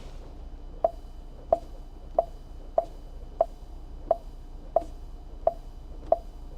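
Touchscreen key-press beeps as a 5-digit door keypad code is tapped in on a car's dashboard screen: nine short click-tones at a steady pace, about one every two-thirds of a second.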